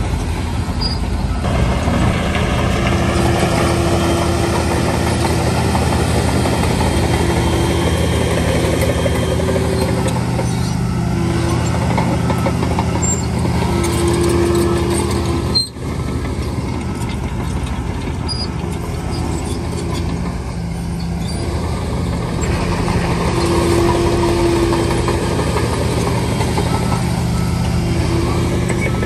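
Bulldozer's heavy diesel engine running steadily while working, a low drone with a higher whine that comes and goes, broken off briefly about halfway through.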